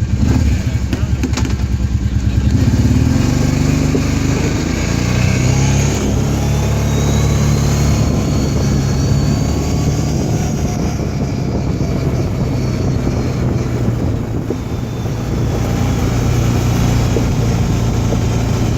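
A motor vehicle's engine running close by, with a fast pulsing note for the first few seconds and then running steadily.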